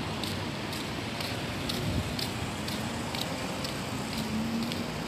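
Footsteps of a person walking, about two steps a second, heard as light regular ticks over a steady street hiss and hum.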